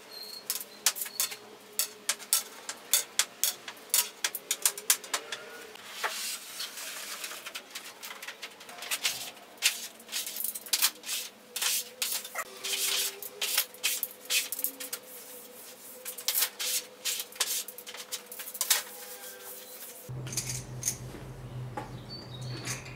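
Thin wooden slats clattering and knocking on a table top as they are laid across it and handled, a long string of sharp clicks, while a large sheet of HPL laminate is moved over them. A steady low hum comes in near the end.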